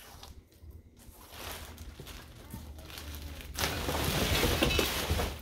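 Plastic wrapping rustling and crinkling around a stroller wagon being lifted out of its cardboard shipping box, getting much louder and denser in the last couple of seconds.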